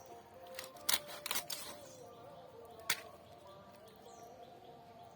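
Catla fish being cut with a blade: a few sharp clicks and knocks, about a second in and again near three seconds, over a faint steady hum.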